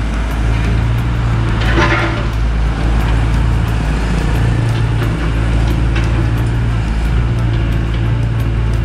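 Hyundai 55 wheeled excavator's diesel engine running under load, its hum swelling and easing every second or two as the hydraulics work the bucket through the rubble. A short clatter comes about two seconds in.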